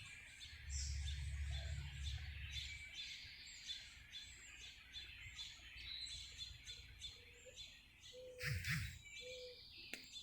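Small songbirds, finches among them, chirping in a dense chatter of short, quick calls. A low rumble runs under the first three seconds, and a few short low notes and a brief louder noise come near the end.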